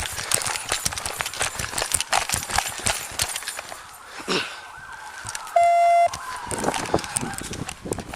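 Running footsteps with gear rattling on a body-worn camera, then a loud half-second electronic beep and a siren-like wail falling slowly in pitch.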